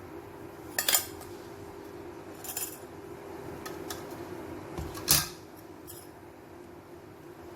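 Metal kitchen utensils clinking against pots and bowls: a few sharp clinks, the loudest about five seconds in, over a steady low hum.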